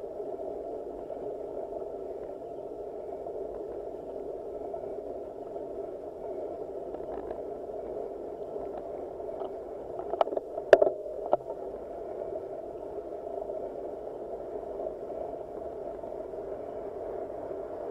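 Road bike climbing slowly, with a dull, steady rolling and drivetrain noise. A few sharp clicks come about ten to eleven seconds in.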